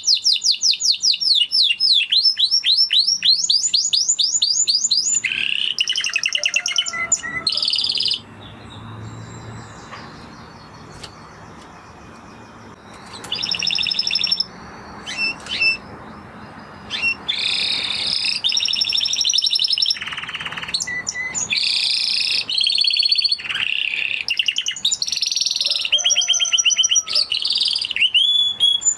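Spanish Timbrado canary singing: phrases of fast, rapidly repeated trilled notes. A pause of several seconds about a third of the way in, then the song resumes in shorter, varied phrases.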